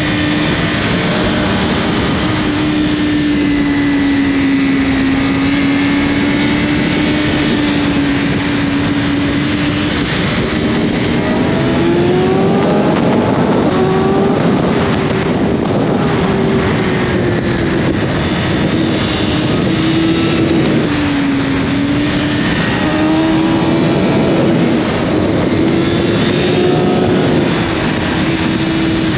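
BMW S1000RR sport bike's inline-four engine running at high revs while riding at speed. Its pitch stays fairly steady, swelling up briefly about halfway through and dipping a little later, under a heavy rush of wind noise.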